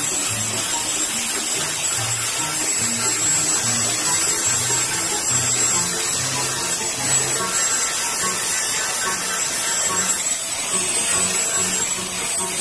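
Electric angle grinder with an abrasive disc running steadily while shaping a wooden bolo handle, the grinding noise over a constant high whine.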